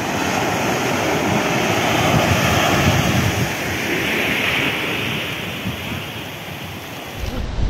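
Sea surf washing onto a sandy beach, swelling around the middle as a wave breaks, with wind noise on the microphone; a low wind rumble picks up near the end.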